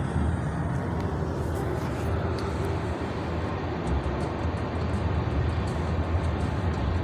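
Steady road noise heard from inside a moving car's cabin: a low rumble of tyres and engine while driving along.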